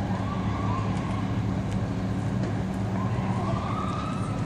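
Emergency vehicle siren wailing in the distance, rising in pitch twice, over a steady low engine drone.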